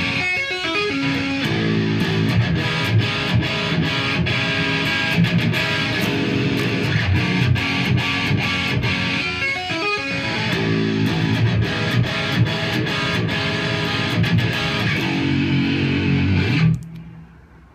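Electric guitar played solo, a busy picked riff with many quick notes and a brief dip about ten seconds in. The playing stops suddenly near the end, leaving only faint room noise.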